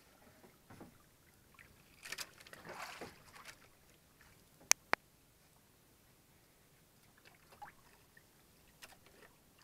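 Soft water sloshing around a small outrigger fishing boat, with two sharp knocks close together about halfway through.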